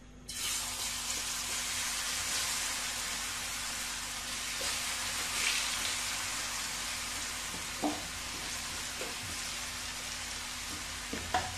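Cornflour-coated potato strips going into hot oil in a frying pan, starting a loud, steady sizzle the moment they hit the oil. A few short knocks come later as more strips are added.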